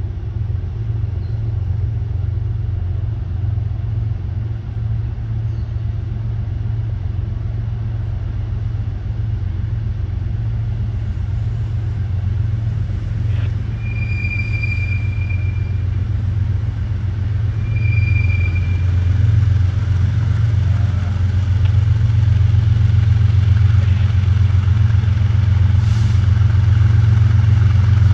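Diesel locomotives of an approaching BNSF freight train rumbling with a low engine drone that grows louder toward the end. Two brief high-pitched whistling tones sound about halfway through, the first longer than the second.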